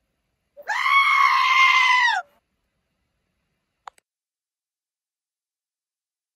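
One long, loud, high-pitched cry held at a steady pitch for about a second and a half, then a faint click near four seconds in.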